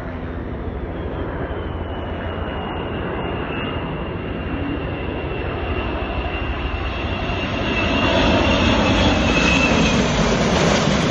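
Jet engines of a large air tanker flying low on a retardant-drop pass: a steady rush with a high whine that slowly falls in pitch, growing louder about eight seconds in as the plane comes over.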